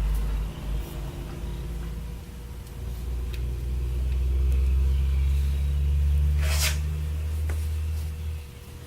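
A low steady hum that swells and fades, with a few faint clicks and one short scraping rustle about two-thirds of the way through, likely small plastic connector parts being handled.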